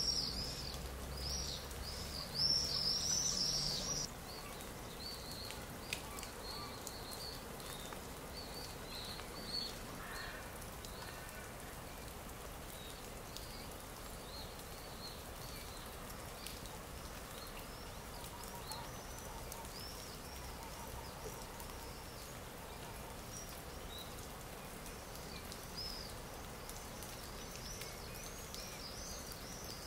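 Stock nature-ambience track: small birds chirping again and again in short high calls over a steady background hiss, louder and busier in the first few seconds.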